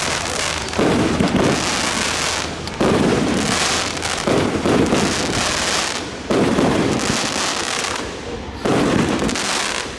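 Fireworks display: a fresh burst roughly every one and a half to two seconds, each followed by a second or so of dense crackling and rumbling.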